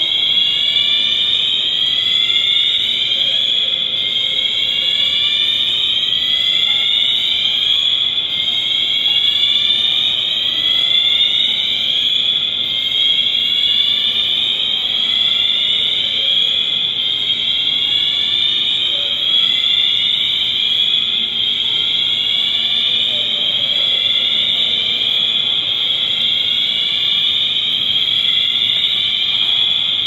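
Building fire alarm system sounding: a high tone sweeping upward, repeated over and over without pause.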